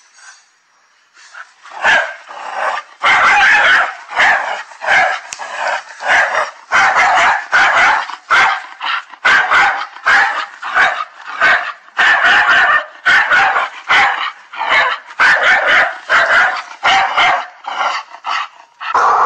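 Dog barking over and over, short barks in quick succession about one or two a second, starting after a brief quiet moment.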